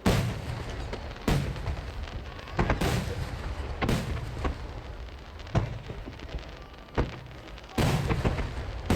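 Barrage of large 12-inch (shakudama) aerial firework shells bursting with dry, sharp cracks, about one a second, each followed by a low rumbling echo.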